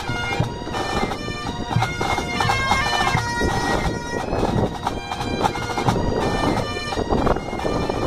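Pipe band playing: Great Highland bagpipes sounding a melody over their steady drones, with snare and bass drums beating along.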